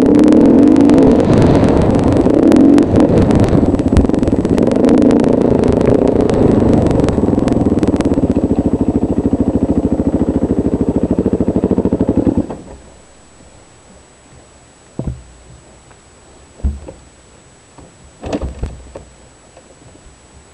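Small dirt bike engine running while riding, settling into an evenly pulsing idle, then shutting off suddenly about twelve seconds in; a few short knocks follow.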